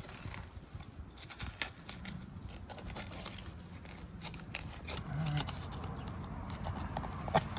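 Hand work in sandy soil around tree roots over a buried sprinkler pipe: irregular scrapes, snips and small crackles, with one sharper click near the end.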